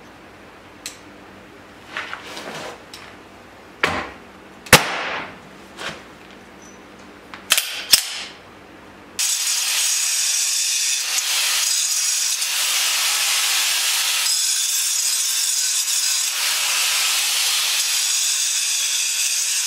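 A few short knocks and brief tool bursts, then, about halfway through, a corded angle grinder starts grinding the hard concrete edge of a floor trench and runs steadily for about ten seconds before cutting off at the end.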